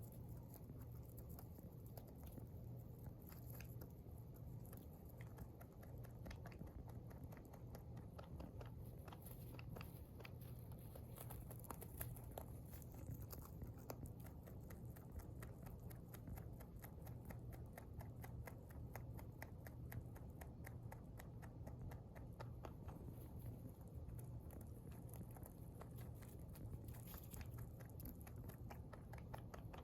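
Rabbit chewing hay: a long, faint run of quick crunchy clicks.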